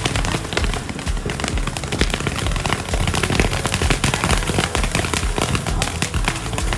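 Dense, rapid crackling and popping of fireworks going off in quick succession, with music playing underneath.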